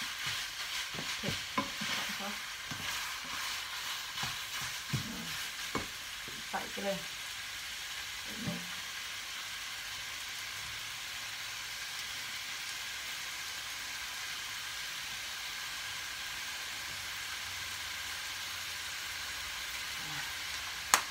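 Minced pork stir-frying in a hot frying pan: a steady sizzle, with the spatula scraping and knocking against the pan during the first several seconds. After that it settles to an even sizzle, and there is a single sharp knock near the end.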